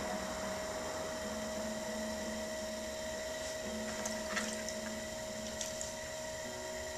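Electric pottery wheel motor running with a steady hum while the wheel spins. A little past halfway, a hand dips into a bucket of throwing water, giving a few short splashes and drips.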